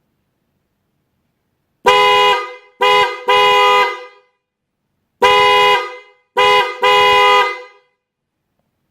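Bosch EC6 Compact Plus fanfare car horns sounding two steady tones together in six loud honks. The honks come in two groups of three, each group long, short, long.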